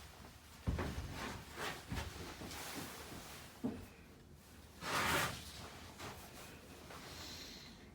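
Casablanca Concentra ceiling fan with its XTR spinner motor running on medium speed, under irregular knocks and rustles. There is a short, louder rush of noise about five seconds in.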